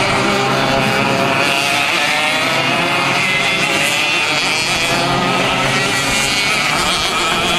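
Several KF2 karts' 125 cc two-stroke engines running at high revs as a pack races past, their pitches overlapping and wavering as the drivers come through the corners.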